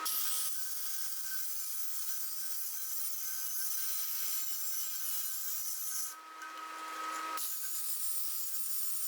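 Stick-welding arc crackling and sizzling steadily as cracks in a cast iron casting are welded up with Certanium 889 cast iron rods. The arc sound breaks off about six seconds in and resumes a little over a second later.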